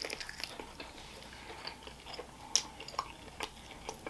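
A person chewing a bite of crispy fried chicken wing coated in thick sauce, close to the microphone: irregular crunches and wet clicks of the mouth, with a few sharper ones past the middle.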